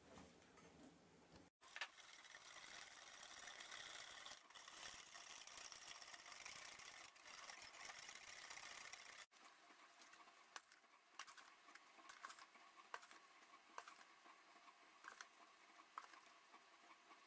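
Wire whisk beating egg and milk in a glass bowl: a steady fast scraping swish of the wires against the glass and through the liquid, starting about a second and a half in and cutting off abruptly about nine seconds in. After that come quieter, scattered light taps and rustles.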